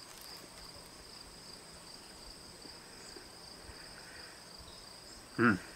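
Steady high-pitched insect trilling, with a short vocal sound from a person near the end.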